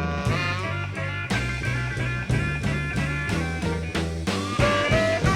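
Live electric blues band playing between vocal lines: melodic lead lines over a steady, repeating bass line and drums.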